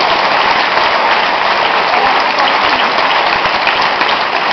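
Audience applauding steadily after an interview.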